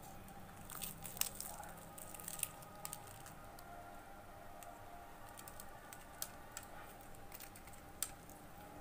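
Faint, scattered crackles of crisp fried samosa pastry breaking apart in the hands, most of them in the first three seconds with a few more near the end.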